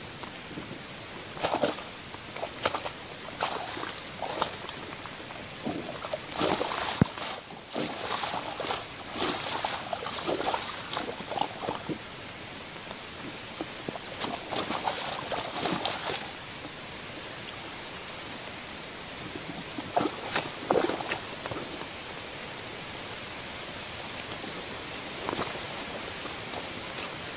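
Rubber waders squelching and sloshing in wet mud and puddle water in irregular steps, busiest over the first sixteen seconds, then a few more around twenty seconds and once near the end, over a steady hiss of light rain.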